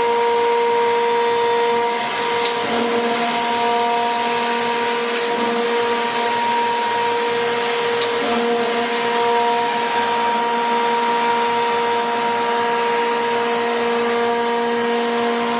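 Thompson 660 hydraulic surface grinder running: a steady machine whine of several held tones over a constant hiss. A lower hum comes in a couple of seconds in and drops out for a moment near the middle.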